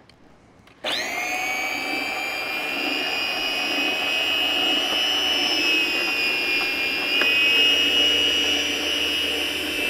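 Meat Your Maker electric meat slicer switched on about a second in: its motor spins up with a short rising whine, then runs steadily with a high whine while meat is fed through the circular blade.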